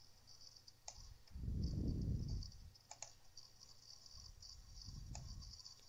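A few separate computer mouse clicks, about a second in, a double one about three seconds in, and one near the end, as code is selected. Two soft low rumbles come between them, the louder about two seconds in.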